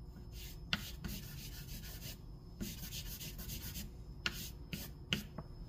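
Willow charcoal stick rubbed across sketchbook paper: a series of scratchy, hissing strokes of up to about a second each, with a few sharp ticks as the stick catches the paper.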